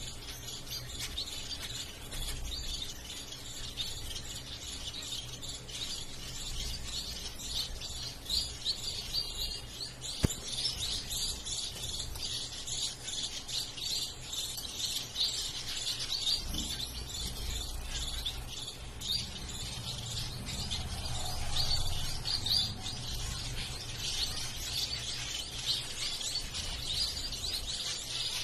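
Caged zebra finches calling together: a dense, continuous chatter of short, high chirps. A single sharp click comes about ten seconds in.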